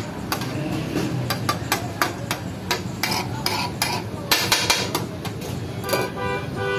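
Metal utensils clinking and scraping against pots and dishes in quick, irregular strokes. Near the end a vehicle horn sounds.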